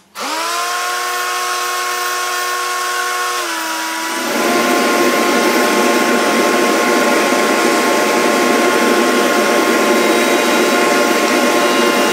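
A high-speed cutter motor on a rose engine lathe switches on abruptly and spins up to a steady whine. About four seconds in, the pitch dips slightly and a louder, rougher hiss joins it, as the spinning cutter starts cutting the wood.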